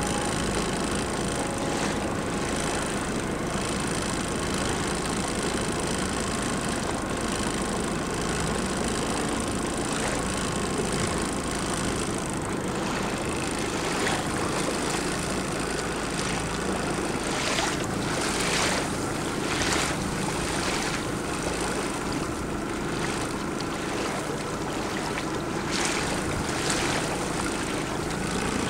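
Speedboat engine running steadily under way, mixed with rushing water and wind noise. In the second half, repeated brief rushes of noise break over the steady drone.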